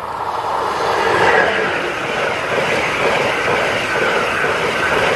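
Amtrak passenger train passing close by the platform: a loud rushing noise of wheels and coaches that swells over the first second and then holds steady as the stainless-steel Amfleet cars go by.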